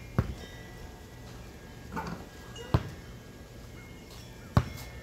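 A basketball bouncing on the ground: three single sharp thuds, about two seconds apart.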